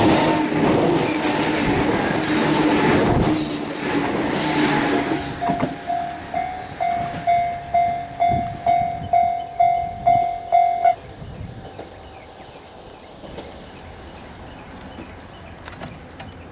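A train running through a level crossing, its wheels loud on the rails for the first five seconds or so and fading. The crossing's warning bell then rings on its own at a little under two strikes a second and cuts off about eleven seconds in as the barrier clears.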